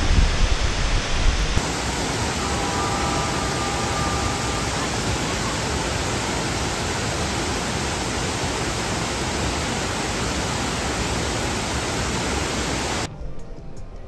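Steady, even rush of a waterfall. A low wind rumble on the microphone drops away shortly after the start, and the water sound cuts off abruptly near the end.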